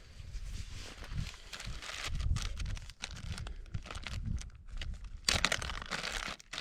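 Irregular crunching and crinkling handling sounds, with a denser, louder cluster about five seconds in.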